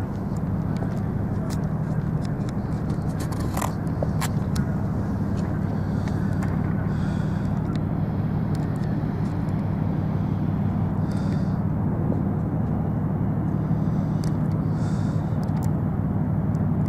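Steady low engine hum of a motor vehicle running at a constant pace, with a couple of brief clicks about three and a half seconds in.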